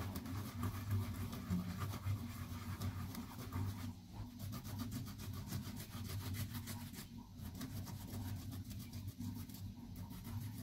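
Fresh ginger rubbed back and forth on a toothed grater plate: a quick, continuous run of small rasping scrapes with brief pauses, over a steady low hum.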